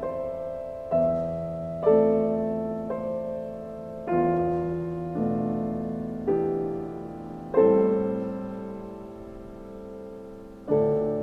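Background piano music: slow chords struck about once a second, each left to ring and fade, with a longer held chord before a last one near the end.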